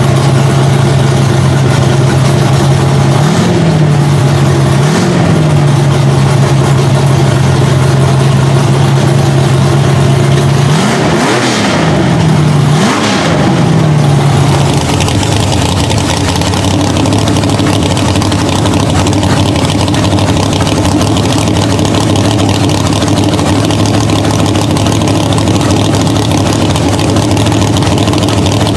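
V8 drag-racing engine idling, blipped on the throttle four times: briefly about 3 and 5 seconds in, then twice in quick succession around 11 to 13 seconds. About halfway through, the sound changes to a lower, steady engine idle.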